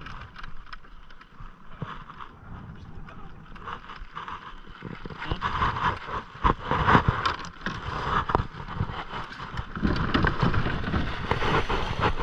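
Wind on the microphone aboard a small fishing boat, with a run of knocks and thumps that grows louder and busier about halfway through.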